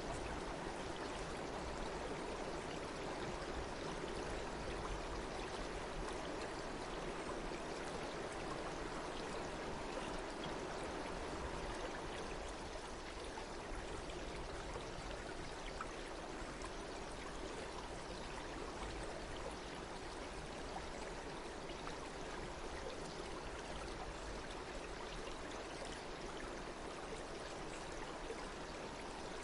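Stream water flowing steadily, a little quieter from about twelve seconds in.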